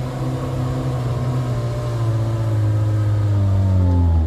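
Heavy truck's diesel engine running steadily, its pitch slowly sinking, most clearly in the last second.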